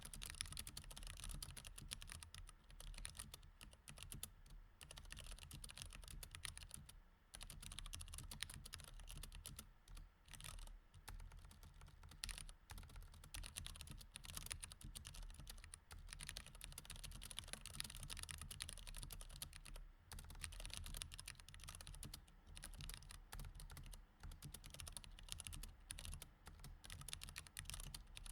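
Mechanical keyboard with Cherry MX Red switches being typed on continuously, a dense run of quiet key clicks with a couple of brief pauses.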